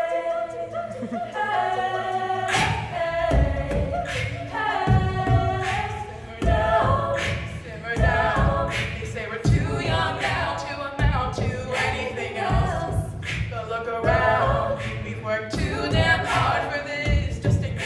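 All-female collegiate a cappella group singing in close harmony. A sung bass line and a steady vocal-percussion beat come in about two and a half seconds in.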